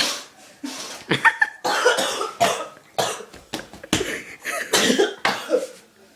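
A person in a sneezing fit: about a dozen short, breathy bursts in quick succession.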